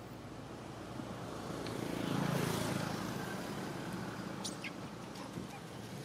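A motor vehicle driving past: its engine hum and noise swell to a peak about two seconds in, then slowly fade. A couple of faint ticks come later.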